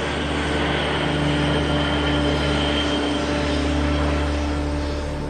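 Antonov An-225's turbofan jet engines running steadily, a dense noise with a low hum and a thin high whine that fades about three seconds in.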